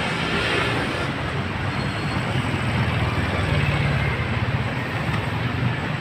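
Electric blower fan of an inflatable tube man running steadily with a low hum, mixed with street traffic.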